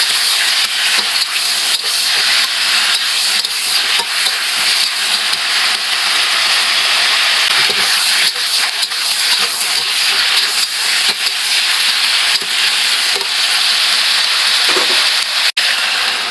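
Food sizzling steadily in hot oil in a pan as it is stirred, with a brief break near the end.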